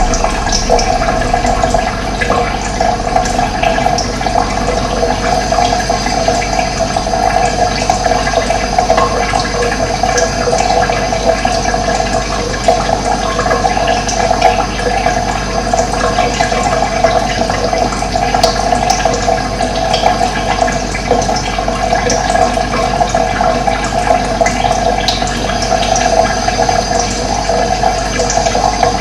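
Steady running water, a continuous rushing flow, with faint bird chirps scattered over it.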